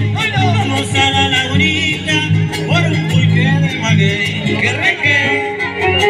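Live string-band music: plucked guitars over a steady bass pattern, with a melody line bending in pitch above.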